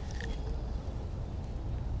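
Low, uneven rumble of wind buffeting the camera's microphone, with no distinct events apart from a tiny short chirp near the start.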